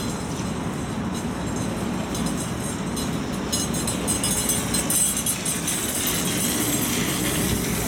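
Trolza-5265.00 Megapolis electric trolleybus pulling in to a stop and drawing up alongside. Its running noise grows louder about three and a half seconds in as it comes close.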